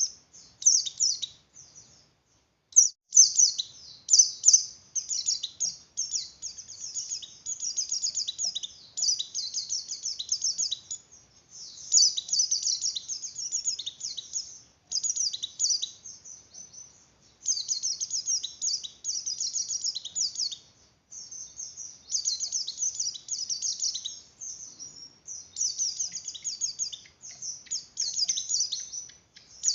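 A white-eye (pleci) in breeding condition singing a rapid, high twittering song. The song comes in long unbroken phrases several seconds each, split by brief pauses.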